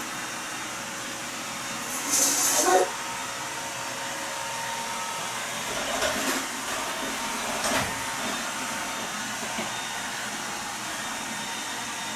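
Steady whirring of a household appliance running in the room, with a brief louder hiss about two seconds in and two fainter short knocks later on.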